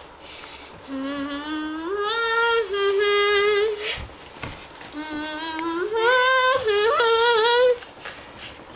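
A child's voice singing a slow tune in long, wavering held notes, in two phrases with a short break about four seconds in.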